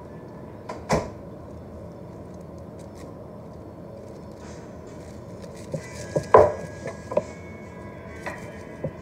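Kitchen knife cutting through iceberg lettuce, with a few sharp knocks as the blade meets the surface below: one about a second in and a cluster near the end, the loudest about six seconds in, over a steady low hum.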